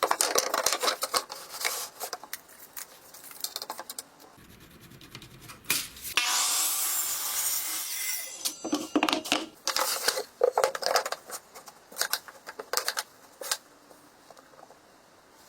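Hand tools working wood: a run of short scrapes and knocks, then a steady rasp lasting about two seconds some six seconds in, then more scraping strokes that die away near the end.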